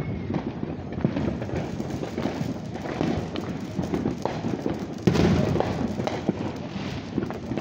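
Fireworks going off all around: a steady crackle of many small pops and bangs, with one louder bang about five seconds in.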